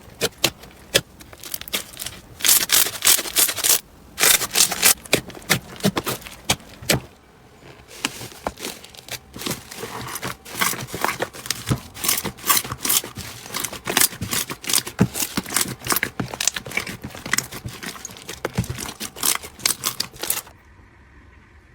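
Slime being squeezed and poked by hand, giving dense crackling and popping clicks that come in loud flurries, typical of crunchy slime. The clicks soften briefly about seven seconds in, and the sound drops away suddenly near the end.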